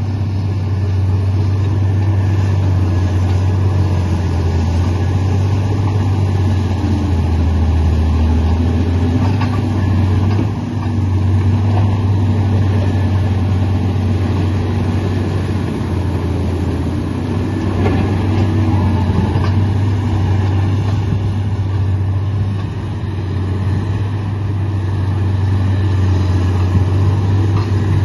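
Komatsu D85 bulldozer's diesel engine running steadily under load, a loud, constant low drone with a few short dips in level.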